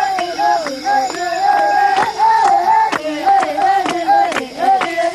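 Baka women singing a chant together, with hand claps sounding throughout.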